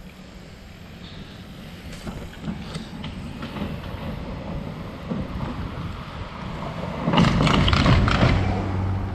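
An SUV driving across the timber plank deck of a covered bridge. The tyres rumble and the boards clatter, growing steadily louder as it comes through, and are loudest near the end as it rolls off the bridge.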